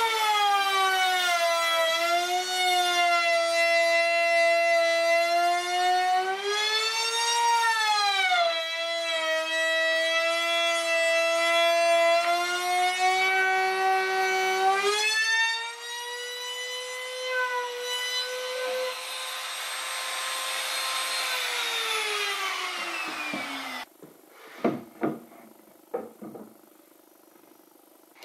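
Compact trim router cutting a groove into a pine pallet board, its high whine sagging in pitch as the bit takes load and recovering. About halfway it runs free at a steadier, slightly higher pitch, then winds down, followed by a few knocks.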